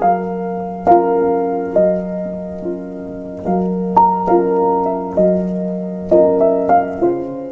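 Piano playing a slow, gentle piece of chords and melody notes, with a new note or chord struck about once a second.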